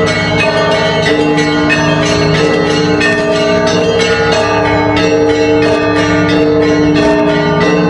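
Church bells ringing: many bells struck in quick succession, several strikes a second, their tones ringing on and overlapping in a continuous peal.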